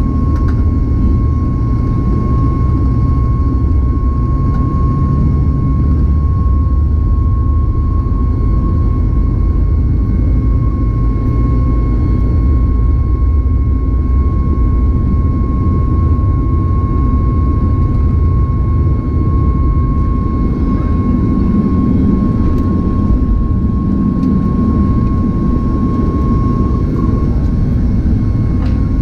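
CFM LEAP-1B turbofan engine of a Boeing 737 MAX at takeoff thrust, heard from inside the cabin over the wing. It makes a steady deep roar with a steady high whine on top, through the takeoff roll and liftoff.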